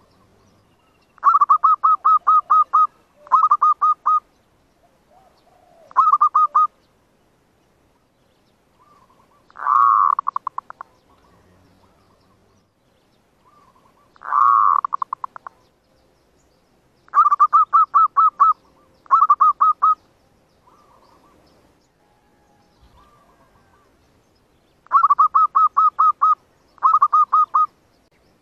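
Zebra dove cooing: repeated bursts of quick staccato coos, about six a second, broken by two longer rolling coos that start loud and trail off.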